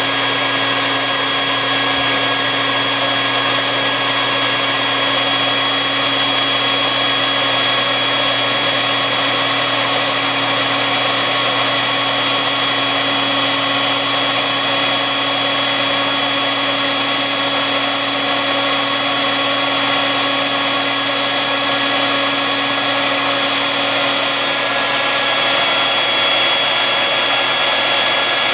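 Electric blower running steadily, a constant motor whine over rushing air, drawing wood gas through the gasifier and out the flare pipe.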